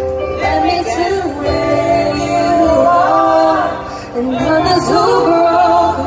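A young woman singing a slow country ballad solo into a microphone through a concert PA, over steady amplified backing music.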